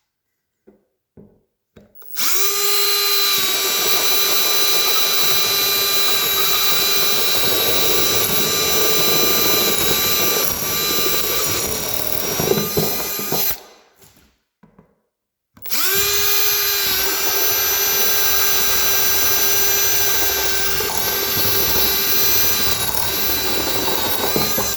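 Power drill boring holes through a 55-gallon bait barrel in two long runs, each spinning up quickly to a steady whine. The first lasts about eleven seconds, then there is a short pause before the second, of about nine seconds.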